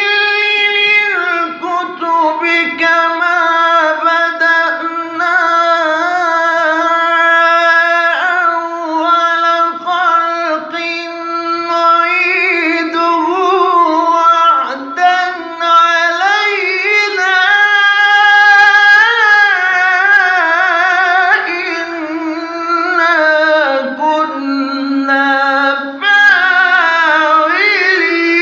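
A male Quran reciter (qari) chanting unaccompanied in the melodic tajweed style. He draws each phrase out into long held notes with quick ornamental turns and wavering pitch, with only brief breaks for breath.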